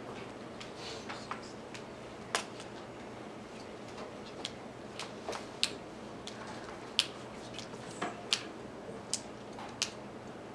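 Light clicks and taps of drawing instruments, a compass and pencil, being handled on paper over a desk, about ten of them at irregular times. A steady low room hum runs beneath.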